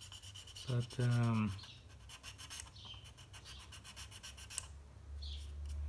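Light scratching and rubbing strokes on a plastic model car body shell, a quick run of soft scrapes as excess flash is cleaned off.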